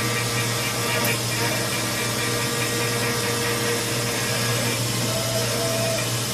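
Hurco 5-axis CNC mill cutting a metal block, likely aluminium: the spindle and end mill run with a steady machining noise and a low hum underneath, with higher held tones that change pitch about five seconds in.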